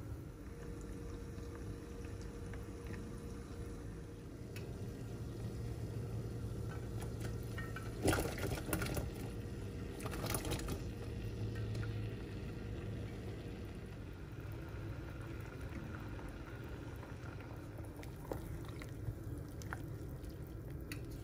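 Water at a rolling boil, bubbling steadily in a saucepan. About eight seconds in, green beans are tipped into the boiling water, splashing twice in quick succession, and the boil goes on.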